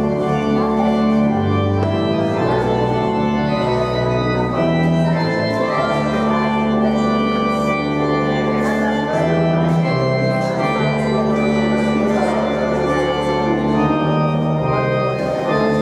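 Church organ playing held chords over a slowly moving bass line.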